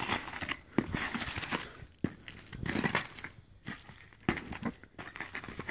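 Ice skate blades scraping and crunching on rough outdoor ice, in uneven strokes with a few sharp clicks.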